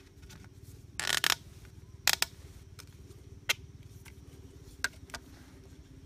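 Blue PVC water pipes and elbow fittings being handled and fitted together: a short plastic scrape about a second in, then a handful of sharp hard clicks and knocks, over a faint low steady hum.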